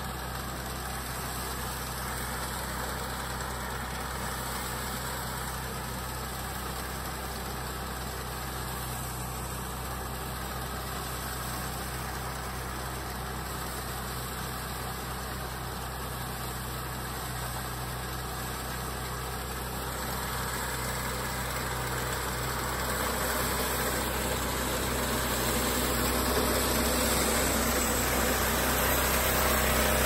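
TAGRM 4LZ-1.0A mini crawler wheat harvester running steadily as it cuts standing wheat, growing louder over the last ten seconds or so.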